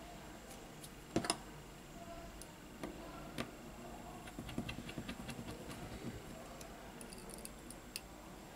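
Small sharp clicks and taps of a Xiaomi Mi 9 SE's internal parts being pressed and fitted into place during reassembly. The loudest is a close double click about a second in, then scattered ticks with a quick run of small ones around the middle.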